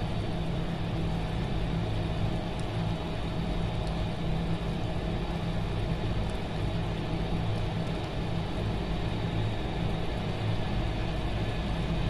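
Steady low droning hum of a motor running, even throughout, with a faint hiss above it.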